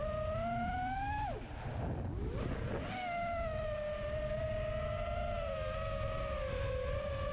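FPV quadcopter's electric motors and propellers whining. The pitch climbs, drops away sharply about a second in as the throttle is cut, then comes back about three seconds in and holds steady, with wind rumbling on the onboard microphone underneath.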